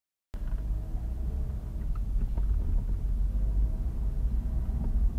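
Low, steady vehicle rumble picked up by a dash cam's microphone inside the car, starting abruptly out of dead silence about a third of a second in.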